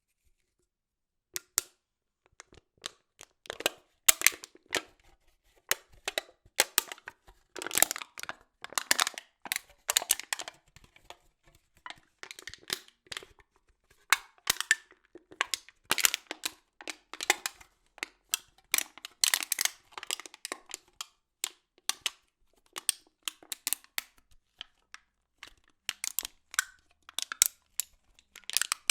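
A drink bottle or can being crushed and squeezed, giving clusters of sharp, irregular crackles and snaps with brief pauses between squeezes.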